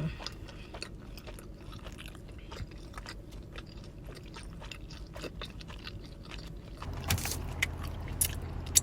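Close-up chewing of a crawfish egg roll, with small wet clicks and scrapes of mouth and food. About seven seconds in, a steady low hum comes in along with a few sharper clicks.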